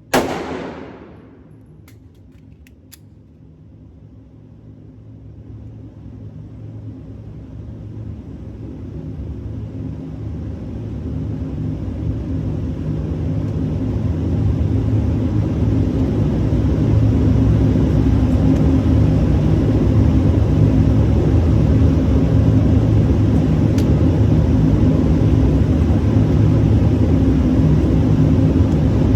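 A sharp bang right at the start, then the low rumble of a vehicle that builds steadily for about fifteen seconds and then holds steady.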